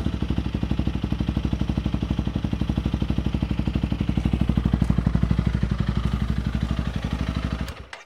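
Honda CRF300L Rally's single-cylinder four-stroke engine idling through a MotoX aftermarket exhaust with its baffle removed: a steady, even chugging that cuts off abruptly just before the end.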